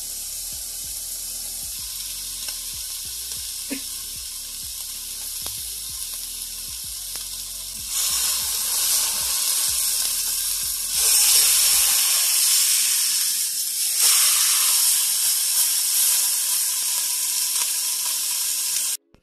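Rump roast searing in hot oil in a pot: a steady sizzle that steps louder about eight, eleven and fourteen seconds in as the meat is turned onto fresh sides with a fork, then cuts off suddenly near the end.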